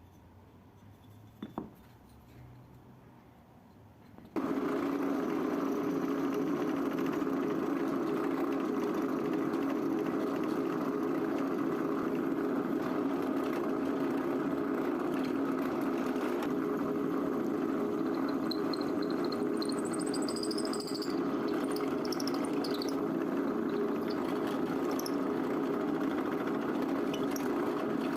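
An electric power tool switched on about four seconds in and running steadily, with a few faint high squeaks partway through.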